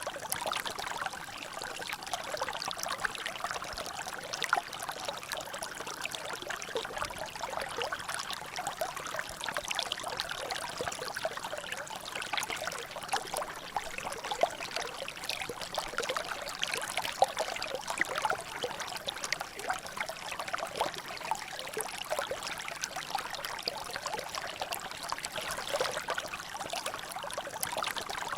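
Water trickling and dripping steadily, a constant run of small drops and splashes with no pauses.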